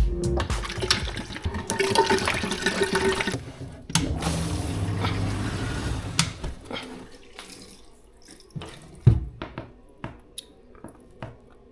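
Water running from a tap and draining away through waste pipework, in two spells that stop about three and six seconds in, then scattered small clicks and one sharp knock. The waste pipe is leaking inside the wall from a cracked fitting.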